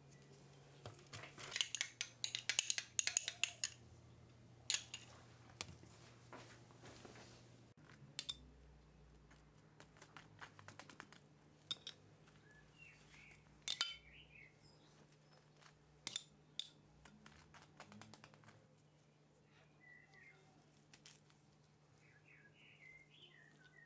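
Kitchen handling sounds: quick clicks and clinks of utensils and dishes, densest in a burst of rapid taps about two to four seconds in, then a few sharp knocks scattered through the rest. Faint chirps sound in the background now and then, with a steady low hum underneath.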